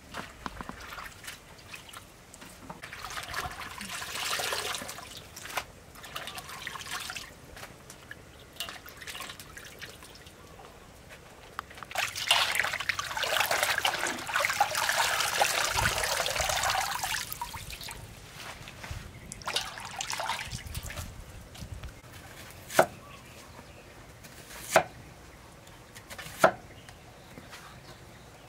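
Hands swishing and splashing leafy greens in a large steel basin of water, in bursts, loudest and longest in the middle. Near the end come three sharp knocks, about two seconds apart.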